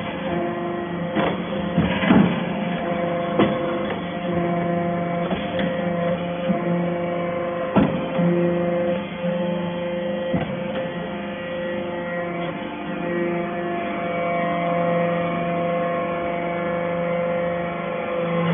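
Hydraulic scrap-metal baler running: a steady hum from its motor and pump, with a few sharp clanks in the first eight seconds.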